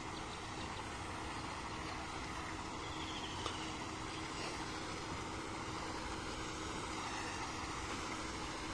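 A pond aerator running steadily across the water: an even hum under a continuous wash of churned water.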